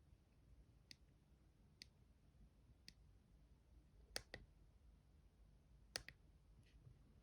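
Faint, sharp clicks of an Alcatel OT 715 mobile phone's keypad buttons being pressed, roughly one a second, with quick double presses about four and six seconds in.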